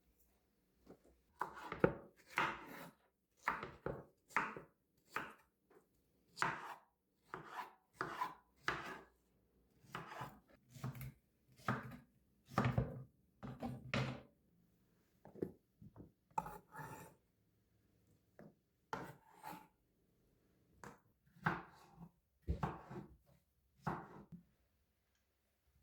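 Knife chopping food on a wooden cutting board: a run of irregular strokes, about one or two a second, with short pauses between runs.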